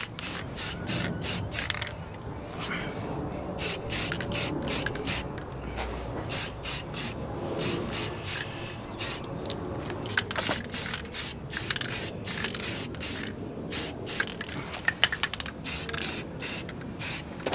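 Aerosol spray can hissing in many short bursts, about two a second with a few brief pauses, as a coat is sprayed onto hanging metal parts.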